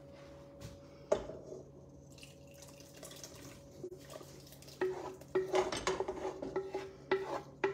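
Thick Alfredo sauce being poured from a saucepan and scraped out with a wooden spatula, the spatula knocking and scraping against the metal pan. There is one sharp clank about a second in, and a quicker run of scrapes and knocks with a ringing pan tone through the second half.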